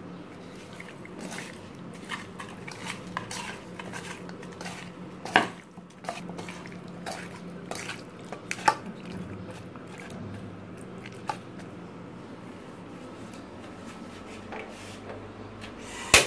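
Hands tossing raw pieces of stinging catfish (shing) with turmeric and salt in a bowl: scattered clicks and knocks as the fish pieces hit the bowl, with a few louder knocks. Near the end, a sharp click as a gas stove burner is lit.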